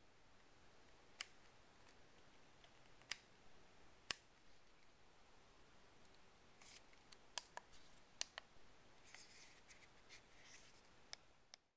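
Canon EOS Rebel T2i (550D) DSLR controls being worked: scattered single sharp clicks, about eight in all, with a little soft handling rustle in between.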